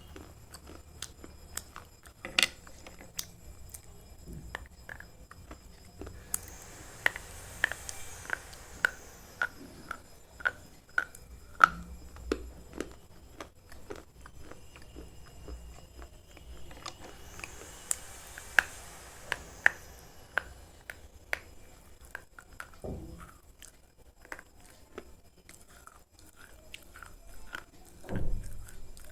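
Slate pencil being bitten and chewed close to the microphone: a long run of sharp, dry crunches, at times about two a second.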